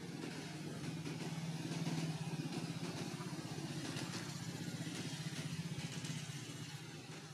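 A small engine running steadily with a fast, even pulse, swelling about two seconds in and easing off toward the end.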